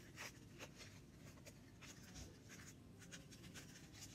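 Faint, scattered crinkling and rustling of a foil cupcake liner being handled as a pipe cleaner is threaded through its holes and bent into a handle.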